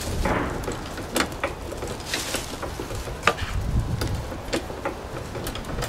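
Car jack being worked to raise the front of a car, pressing against a wooden spacer block: irregular clicks, creaks and scrapes.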